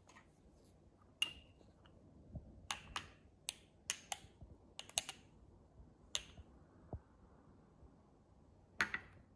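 Metal teaspoon clinking against a small double-walled glass espresso cup while stirring the espresso: about a dozen light, sharp, irregular clicks, the first about a second in with a brief glassy ring.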